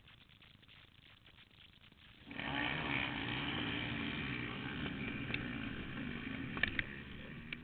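Dirt-bike engines start up together about two seconds in and run with revving, easing off near the end, with a few sharp clicks.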